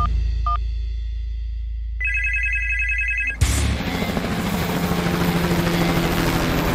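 Cartoon sound effects: a low steady drone with a short beep about half a second in, then a rapid electronic ringing trill for about a second and a half. After that, about three and a half seconds in, a steady rushing, engine-like noise starts with a low hum under it.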